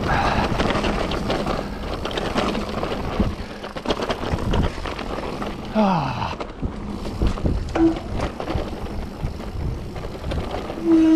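Mountain bike riding a wet, rough trail: steady tyre noise with frequent knocks and rattles from the ground, and a few short squeals about six, eight and eleven seconds in.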